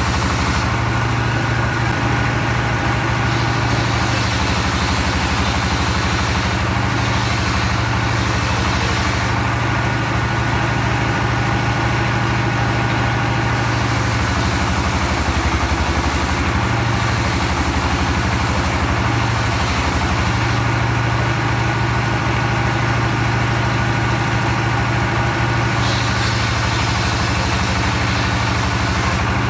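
Sawmill machinery running steadily: a loud engine drone with a strong low hum. The higher hiss swells and fades in stretches of several seconds.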